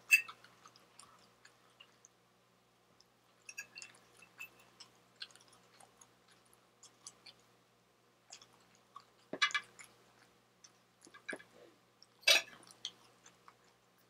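Close-up eating sounds: a metal fork clicking and scraping against a plate, with chewing of soft fish and rice between. Scattered sharp clicks, a few louder ones near the start and about nine and twelve seconds in.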